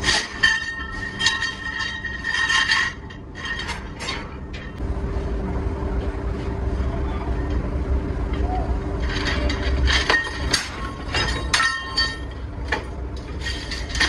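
Steel rotavator blades clinking and clanking against each other and the metal rods they hang on, as rods of blades are handled and dropped into a metal wheelbarrow. The metal rattles and rings in two bouts, one at the start and one from about nine to twelve seconds in, with a steady low machinery hum between them.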